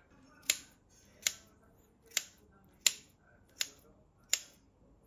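Kitchen scissors snipping kimchi in a bowl of rice: six crisp cuts, about one every three-quarters of a second.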